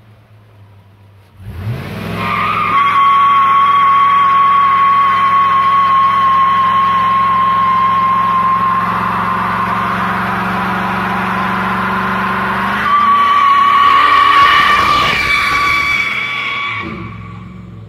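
2001 GMC Sierra's 4.8-litre V8 idling faintly, then revving up about a second and a half in and holding high revs as the rear tyres spin and squeal in a burnout, a steady high-pitched squeal over the engine. Near the end the engine note climbs again and changes, and the sound fades as the truck pulls away.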